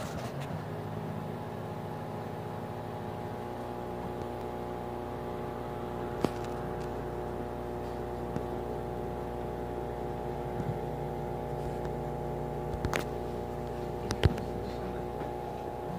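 A steady mechanical hum holding several unchanging tones, with a few sharp clicks: one about six seconds in and two more near the end.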